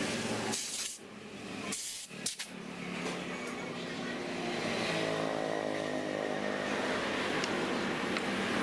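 Three short hisses of compressed air from a blow gun, within the first two and a half seconds, against a steady engine-like drone.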